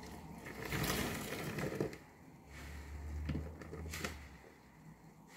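Large foam car-washing sponge squeezed and kneaded by hand in soapy water: a wet, foamy squelch that is loudest in the first two seconds, with softer squishing after.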